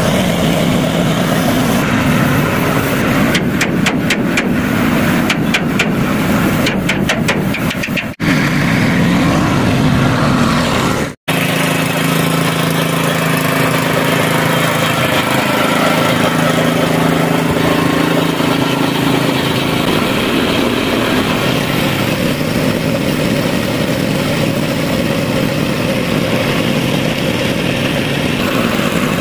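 The small petrol engine of a portable air compressor runs steadily while an air spray gun hisses as paint is sprayed. The sound breaks off twice briefly, about eight and eleven seconds in.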